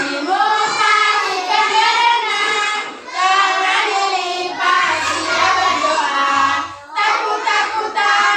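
Young children singing a song together, in phrases of about three to four seconds with short breaths between them.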